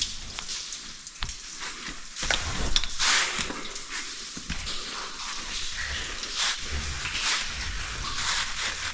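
Water spattering and running down a small cave waterfall, a steady hiss with scattered clicks and knocks; it swells for a second or so about two to three seconds in.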